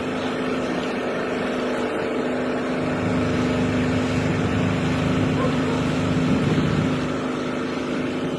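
Engine running at a steady speed with a constant hum, a little louder from about three seconds in until near the end.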